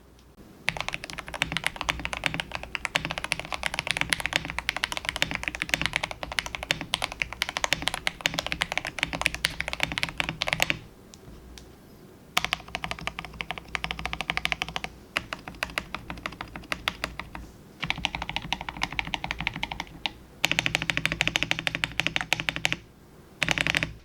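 Typing sound test on a CIY GK68 mechanical keyboard fitted with hand-lubed Gateron milky yellow linear switches, tape-modded and with lubed stabilizers: rapid, dense keystrokes in several runs of a few seconds each, with short pauses between them.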